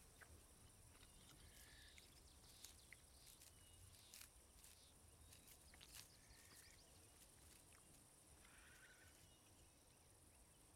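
Near silence: faint woodland ambience with scattered short chirps and a few small ticks.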